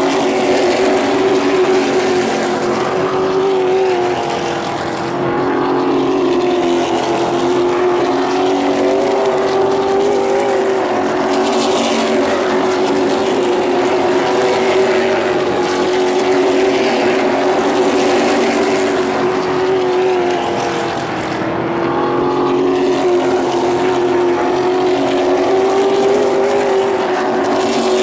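A field of short-track stock cars racing together, their V8 engines running hard in a steady, layered drone that wavers in pitch as the pack goes through the turn. The sound eases briefly about 5 seconds and 21 seconds in, then builds again.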